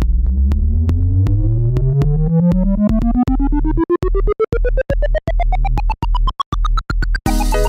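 Electronic background music: a synthesizer tone rising steadily in pitch for about seven seconds over a regular pulse, then the full music with chords comes back in near the end.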